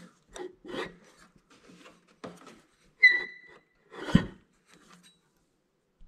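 Hand-turning of a lawn tractor's twin-cylinder engine with the spark plugs out: irregular scraping and rubbing, a short metallic ring about three seconds in, then a heavy thump just after four seconds. No starter motor is heard.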